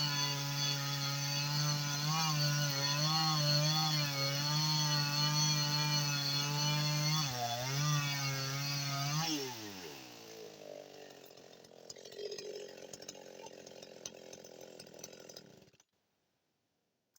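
Husqvarna 55 Rancher two-stroke chainsaw running at full throttle through a log, its pitch wavering and dipping as the chain loads up. About nine seconds in the throttle is released and the engine winds down to a quieter idle, which cuts off abruptly near the end.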